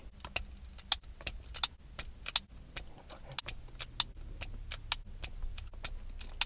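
Handheld self-adjusting wire stripper working on car radio harness wires: sharp metal clicks and snips from its jaws and spring mechanism, irregular, a few a second, as the old wires are cut off the plug.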